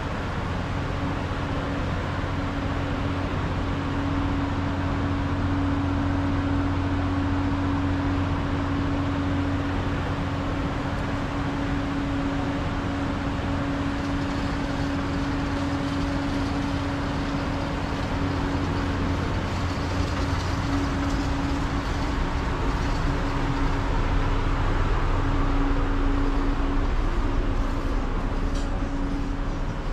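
Steady hum of a docked catamaran ferry's onboard machinery: a constant drone with a held low tone.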